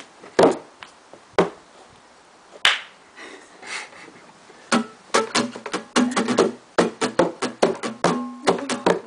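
A few sharp hand slaps, then from about halfway an acoustic guitar strummed in quick, choppy strokes.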